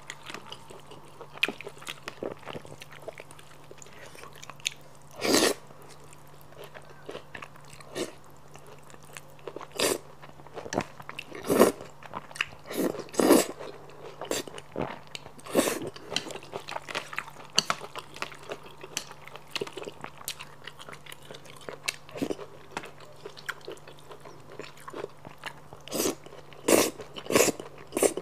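Close-miked eating of saucy noodles with squid: loud wet slurps of noodles every few seconds, and between them chewing and small wet mouth clicks.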